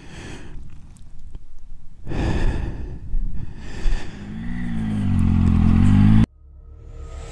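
Triumph Tiger 800 XCA's three-cylinder engine picking up revs as the bike rides off along a gravel track, its note rising and dipping. It follows a few seconds of rushing noise and cuts off suddenly near the end.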